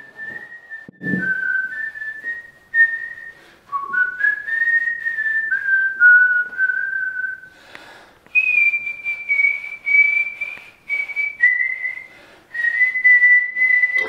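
A person whistling a slow tune, one clear note at a time, the melody climbing to its highest notes about eight seconds in. There is a short low thump about a second in.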